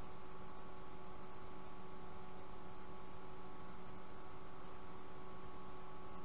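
Steady electrical hum with a hiss beneath it, several fixed tones held at an even level with nothing else happening.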